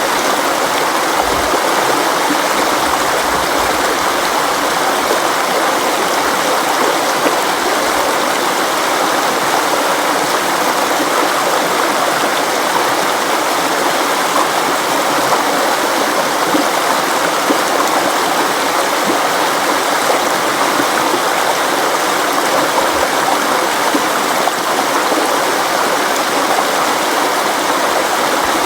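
River water flowing and splashing over rocks in a steady rush, with no change throughout.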